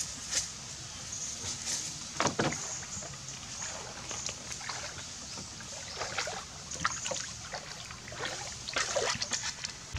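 Water sloshing and splashing around a bamboo-pole raft as it is stepped on and poled along, in irregular splashes and knocks a few seconds apart, the loudest about two seconds in.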